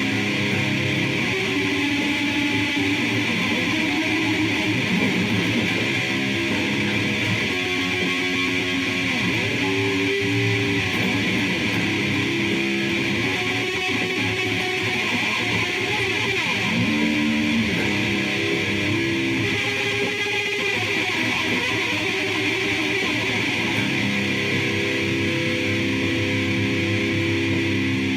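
Sludge noise music: electric guitar holding slow, shifting low notes over a steady wash of noise, at an even loudness throughout.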